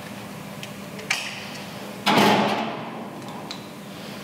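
Small metal handling sounds from fitting a hose clamp onto a rubber gas hose with a screwdriver: a light click about a second in, then a louder sudden scraping clatter about two seconds in that dies away within a second, and a few faint ticks after.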